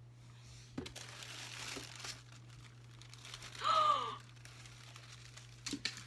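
Packaging crinkling and rustling as a box of rabbit toys and treats is unpacked. About halfway through comes a short wordless vocal sound, a gasp-like 'ooh' that rises and falls, and this is the loudest moment. A few light clicks follow near the end.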